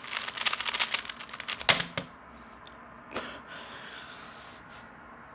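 Rapid clicking of a 3x3 Rubik's Cube being turned fast in a speedsolve, ending about two seconds in with one sharp, loud knock. One more click follows about a second later, then only faint room tone.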